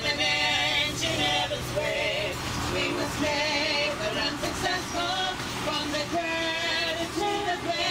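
A small choir of women singing a song live aboard a narrow-gauge tourist train, with the train's steady low running rumble underneath.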